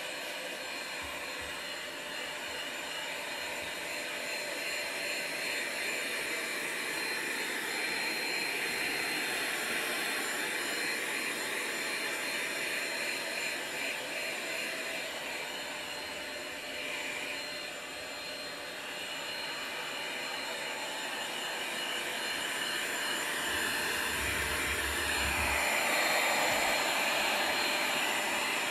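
Handheld vacuum cleaner running steadily, its hum shifting a little as the nozzle is moved about, and growing louder over the last few seconds.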